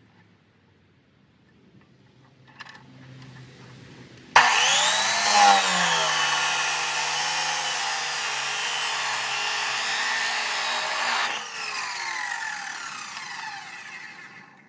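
Abrasive chop saw switched on about four seconds in, its whine rising as the motor comes up to speed, then grinding harshly through steel exhaust pipe. Near the end it is let off and winds down with a falling whine.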